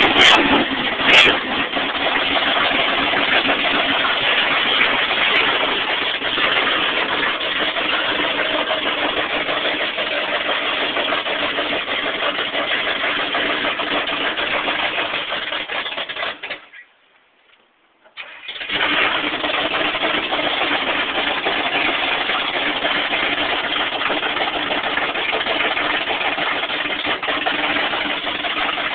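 Lifted Chevy pickup truck's engine running steadily as the truck creeps along on Rockwell military axles and 53-inch loader tires. A few sharp clicks at the start, and the sound cuts out for about two seconds a little past the middle, then returns.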